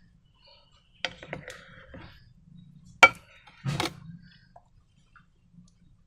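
A few sharp clicks and knocks from objects being handled while making slime, the loudest about three seconds in, followed by a short scraping rustle.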